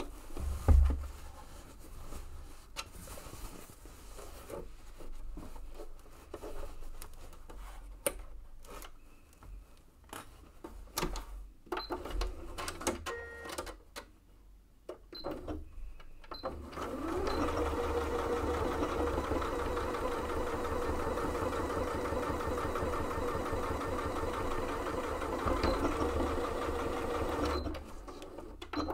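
Fabric being handled and positioned, with scattered short clicks and rustles, then a domestic electric sewing machine starts just past halfway and stitches steadily for about ten seconds, sewing a seam through the layered bag panels, and stops shortly before the end.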